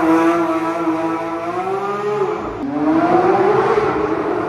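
Porsche 992 GT3's naturally aspirated 4.0-litre flat-six at full throttle in a launch-control start, the car pulling away hard. The engine note rises, drops sharply about two and a half seconds in, then climbs again as the car draws away, echoing in a concrete underpass.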